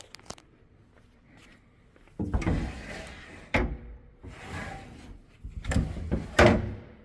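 Sliding door or cover pushed along its track three times. The first and last slides end in a sharp knock against the stop, and the last knock is the loudest.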